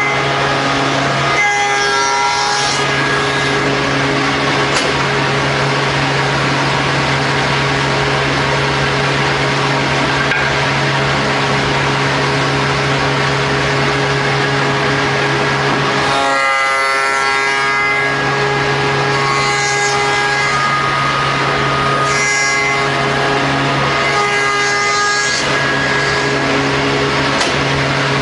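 CNC wood mortising machine running with a steady motor hum, with several short bursts of higher, shifting machine sound as it works the wooden workpiece: once about two seconds in and four more times in the second half.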